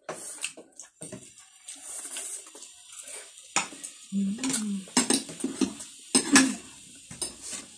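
Spoon and fork clinking and scraping on plates and a bowl, with close-up eating sounds of noodles being chewed and slurped. A short hummed "mmm" comes about four seconds in.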